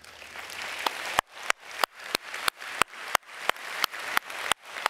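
Audience applauding, building up, with one pair of hands clapping close to the microphone about three times a second.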